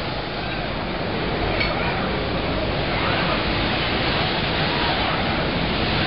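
Steady, even machine-shop noise of a robotic machining cell at work, with a Fanuc robot arm moving and CNC machining centres running.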